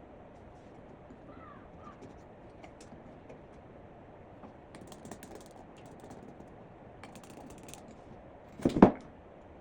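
Scattered light clicks and rattles, then a loud, short double knock near the end.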